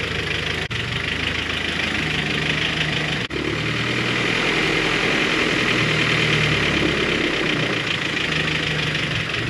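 Honda H22-headed G23 four-cylinder engine idling cold with a fast, steady valvetrain ticking. New lost motion actuators have not cured the tick; the owner places it in the cylinder head and suspects the valve spring retainers and springs. The sound breaks off for an instant twice early on.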